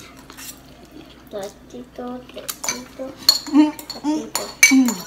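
Metal forks clinking and scraping against bowls of ramen noodles, with several sharp clinks that grow more frequent toward the end, amid noodle slurping and eating.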